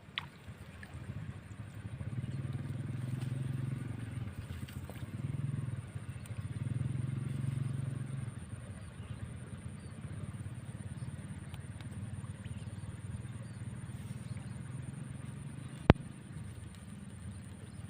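A distant engine running low, swelling and fading over several seconds and then going on more quietly, with a steady faint high whine behind it and one sharp click near the end.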